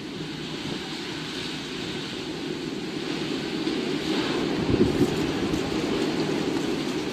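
Storm wind rushing in a steady noise that swells and grows louder around four to five seconds in.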